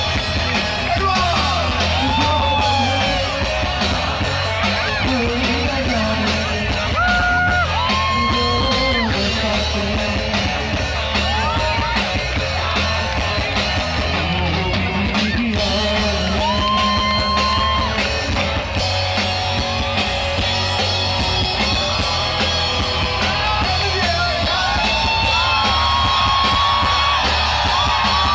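Live pop-rock band playing loud through a PA, with a male lead vocalist singing long held notes over the band.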